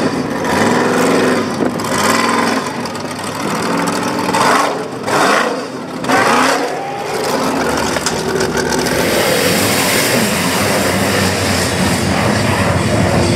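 Off-road race buggy's engine revving hard in rising and falling bursts as it claws up a steep dirt bank. From about eight seconds in, this gives way to a steady rush of engine at full throttle with the hiss of water spray as a vehicle blasts through a water crossing.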